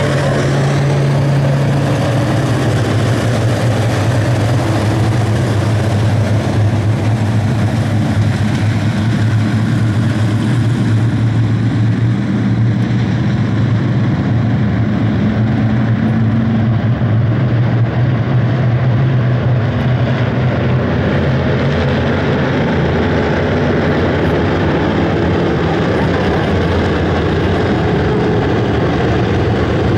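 IMCA modified race cars' V8 engines running together as a pack, a loud, continuous engine drone whose pitch shifts a little as the cars go around.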